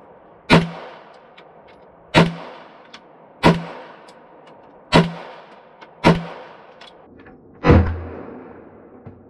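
Six single shots from a Walther PDP 9mm pistol, fired slowly at an even pace about one and a half seconds apart, each a sharp crack with a short echo trailing off.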